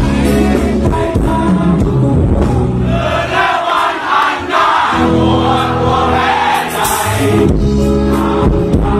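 Thai rock band playing live, with a large crowd singing along in chorus. About three seconds in the bass drops back for a couple of seconds and the crowd's singing carries, then the full band returns.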